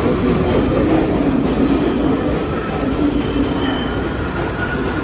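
New York City subway 6 local train pulling out of the station past the platform: a loud steady rumble of wheels and motors with a faint high-pitched wheel squeal.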